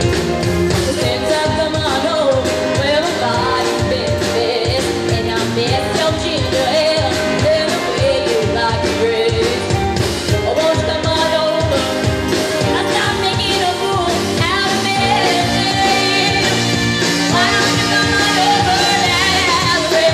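A live band plays loud, upbeat music with saxophones and trombone, electric and bass guitars, keyboard and drums, with singing over it.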